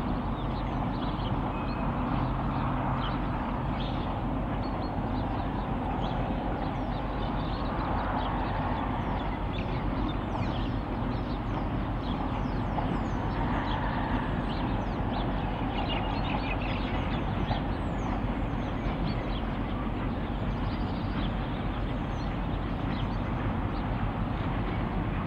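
Two DC-class diesel-electric locomotives running with a steady drone as they slowly haul a loaded log train, with birds chirping throughout.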